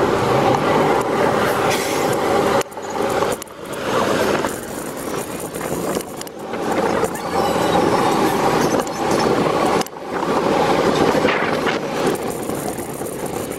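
Steady city street traffic noise heard while moving along the road, broken by a few short, sudden dips in level.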